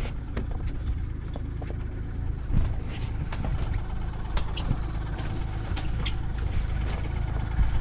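Small boat's outboard motor running steadily, with scattered light clicks and knocks of handling gear.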